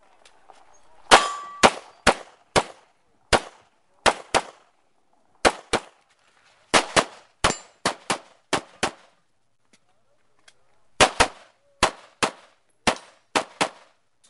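Rapid pistol fire during a practical-shooting stage: about two dozen shots, mostly in quick pairs, with a pause of about two seconds before the final string. A brief metallic ring follows one of the early shots.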